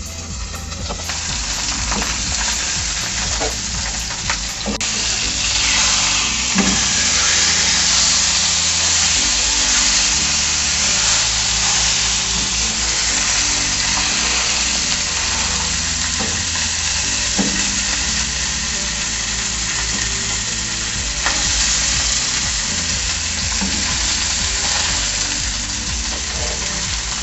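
Whole trout frying in very hot oil in a pan on high heat: a steady, loud sizzle that grows brighter about five seconds in, with a few sharp clicks.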